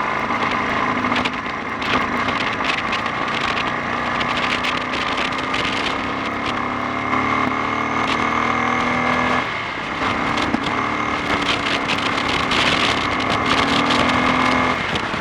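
Honda XL 350 single-cylinder four-stroke engine pulling on the road, its note rising slowly, dropping briefly about nine seconds in as for a gear change, then rising again, with wind buffeting the microphone throughout.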